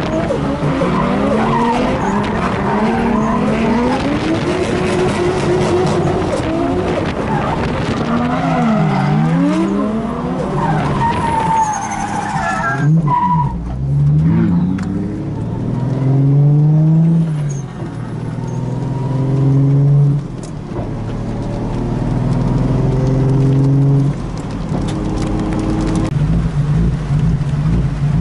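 Nissan Skyline R33's turbocharged RB25DET straight-six, heard from inside the cabin, revving up and down hard through a drift run with the tyres sliding on a wet track. About halfway through the tyre noise stops suddenly. The engine then carries on in a series of shorter revs rising in steps.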